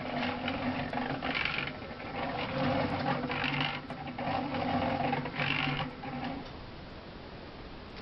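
Small electric cement mixer running with cob in the drum: a steady motor hum, with a rush of the mix tumbling about every two seconds. The mixer shuts off about six seconds in.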